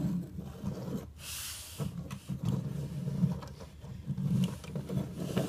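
Plastic wheels of a Lego vehicle rolling back and forth across a tabletop, a rough, uneven low rumble with a brief hiss just after a second in.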